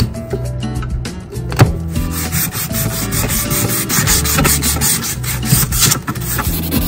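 Small wooden mallet handle being smoothed by hand, with quick back-and-forth rubbing strokes along the wood from about two seconds in. Before that come a few light knife cuts at the end of the handle, with one sharp tap.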